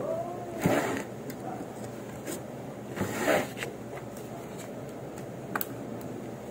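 An orange paper packet being handled at a work bench: two brief rustles about two and a half seconds apart, with a few light clicks, over a steady room hum.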